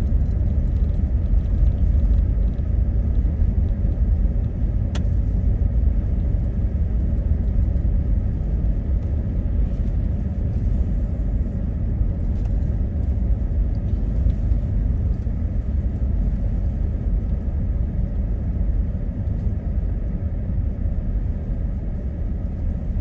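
Car driving on snow: a steady low rumble of engine and road noise, with a single sharp click about five seconds in.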